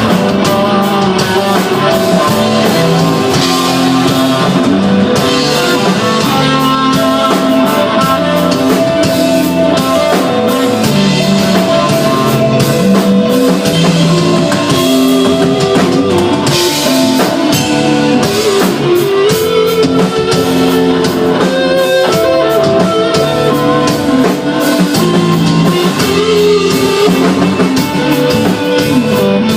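A rock band playing live and loud, with electric guitar and a drum kit, in the style of instrumental desert rock.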